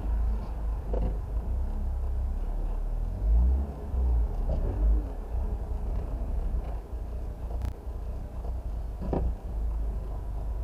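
Audi TT engine running roughly, an uneven low rumble that swells and dips, with a few sharp pops about 1, 4.5, 7.5 and 9 seconds in. The rough running and misfires are the sign of a large vacuum leak: both caps had come off the intake manifold.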